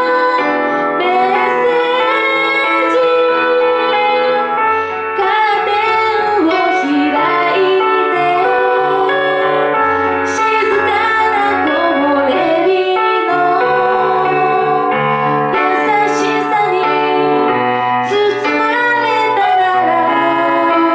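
A woman singing a Japanese pop song live into a handheld microphone, over steady instrumental accompaniment.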